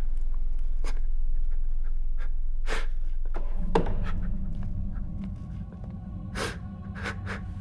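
A man's short, heavy breaths and gasps over a low steady hum. About three and a half seconds in, a low, dark music drone with held tones comes in, and the level falls away.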